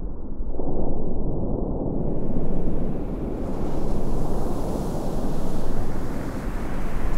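A loud, deep rumbling noise like wind or surf that swells and fades every second or two. It is muffled at first and turns brighter about two seconds in.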